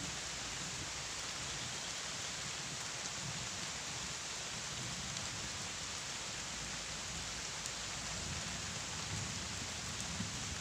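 Steady rain falling, an even hiss with no pauses.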